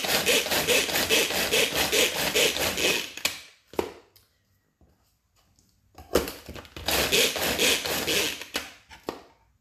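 Tornado hand-operated chopper crushing shortbread biscuits into crumbs: its blades spin in two runs of rattling, grinding noise of about three seconds each, with a short click and a pause between them.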